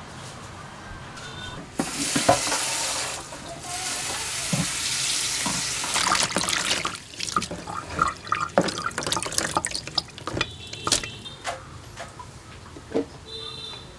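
Water running from a tap in two spells, as in washing something at a sink, followed by a run of knocks and clinks of things being handled.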